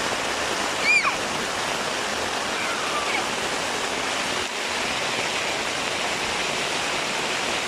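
Rain falling on a tarpaulin-covered tent, a steady hiss, with a brief high voice about a second in.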